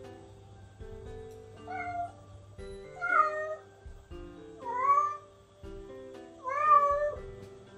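Bengal cat meowing four times, drawn-out calls that grow louder each time: a cat calling for its owner who has gone out of sight. Background music with plucked guitar-like notes plays underneath.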